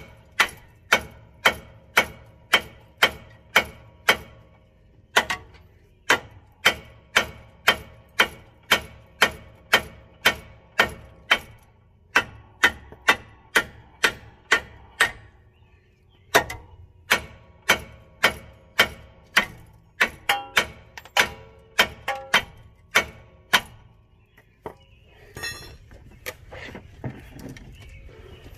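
Hammer blows on the rusted steel front suspension of a 2012 Subaru Legacy, about two a second in runs with short pauses, each blow ringing: beating to free a seized lower ball joint held under tension by a come-along. The hammering stops near the end, leaving a fainter scraping.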